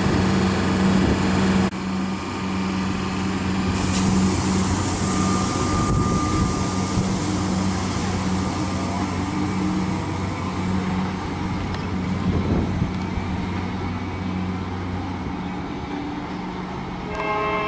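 Comeng electric suburban train running at the platform with a steady hum. A short train horn sounds just before the end.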